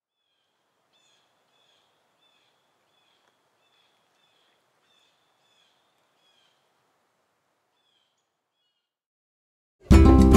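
Near silence with faint bird chirps, repeated about twice a second over a soft hiss, which thin out and stop. About a second before the end, loud music starts suddenly.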